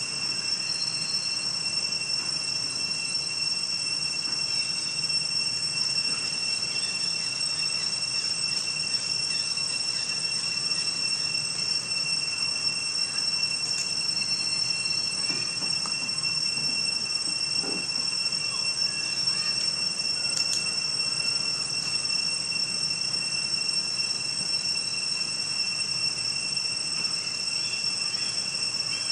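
Steady high-pitched insect drone: one unbroken shrill tone with a fainter overtone above it, over a low steady hum.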